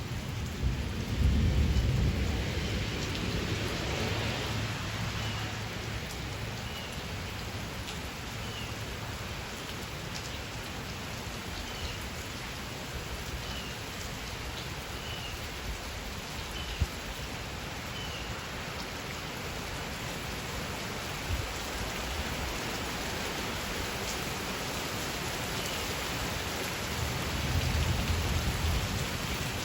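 Steady rain falling on surfaces, with low rolls of thunder: a strong one in the first few seconds and another near the end.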